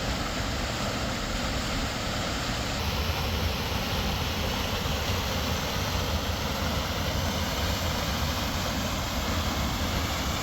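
Steady drone of a Sprinter van driving on the highway: a low engine and road rumble with tyre and wind noise.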